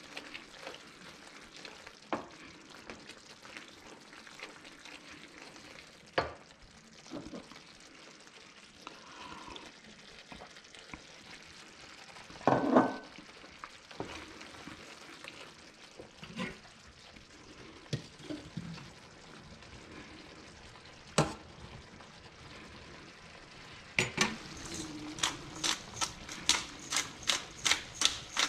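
Cream sauce simmering in a frying pan while a wooden spoon stirs it, with a few sharp knocks of the spoon against the pan. Near the end a hand spice grinder is twisted over the pan, giving a quick run of even grinding clicks, about three a second.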